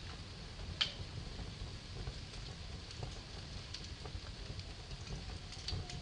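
Wood fire in a fireplace burning with a steady low rumble and scattered crackles and pops, one sharp pop about a second in.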